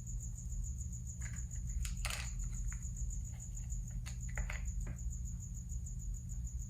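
Soft, scattered rustles and light clicks of plastic pony beads being threaded onto pipe cleaners by hand, a few about 1 and 2 seconds in and again around 4 to 5 seconds in. A steady high-pitched whine and a low hum sit under them.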